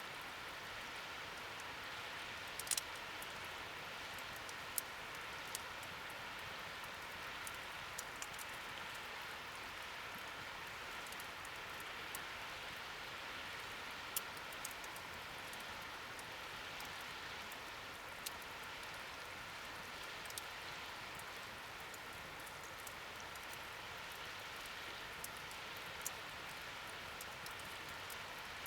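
Wood fire burning in a fire stand: a steady hiss with occasional sharp crackling pops.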